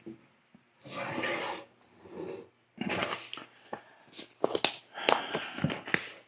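Packaging being handled: two short rustles, then a longer stretch of rustling with many sharp clicks and taps.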